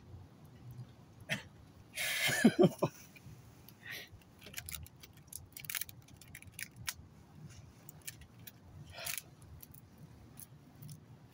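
Rubber bands being stretched and snapped one by one around a watermelon, giving scattered sharp snaps and clicks against the rind. A brief voice sound comes about two seconds in.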